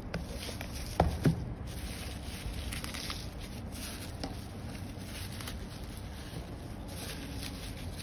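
A parcel wrapped in a plastic bag is handled and unwrapped, with the plastic crinkling and rustling. Two sharp knocks come about a second in, close together.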